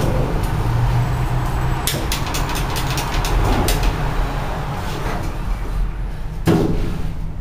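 Otis elevator car at a floor as its doors close: a steady low rumble, a run of rapid clicks in the middle, and a single thump about six and a half seconds in, just after the doors have shut.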